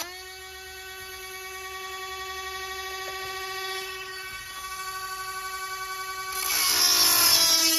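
Small handheld rotary grinder with a 7/32 grinding bit whining steadily, its pitch jumping up at the start as it comes off a chainsaw chain tooth and runs free. A little over six seconds in, it bites into the next cutter: the whine drops in pitch and grows louder, with a rasp of stone on steel.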